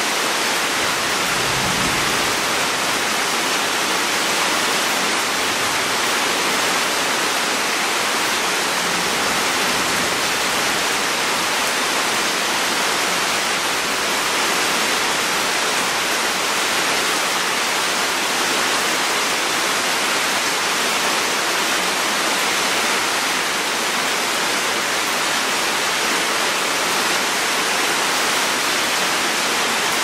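Tropical rain falling steadily: an even, hissing downpour with no distinct drops standing out.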